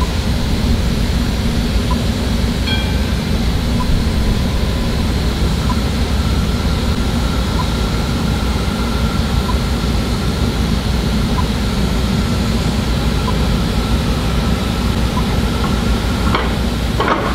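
Melbourne tram approaching along the street track with a steady low rumble. Near the end come several sharp clacks as its wheels begin to pass over the rail joints of the tram square where the tramway crosses the railway.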